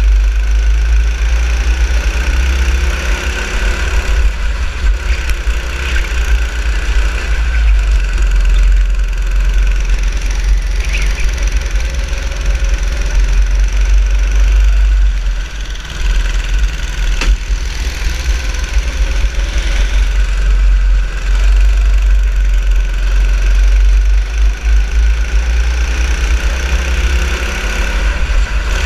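Go-kart engine heard from onboard, its pitch rising and falling with the throttle, under heavy wind buffeting on the camera microphone.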